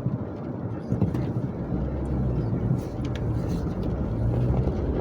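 Car cabin noise while driving on a wet road: engine and tyres running with a steady low rumble that deepens and strengthens about a second and a half in, and a few faint clicks.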